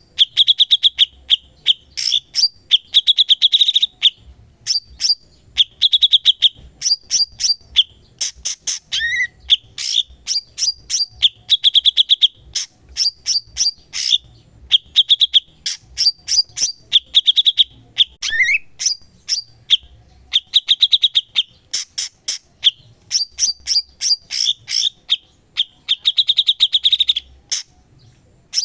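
Cucak cungkok singing nonstop, rapid runs of sharp chips alternating with buzzy trilled phrases, with a couple of short sliding notes.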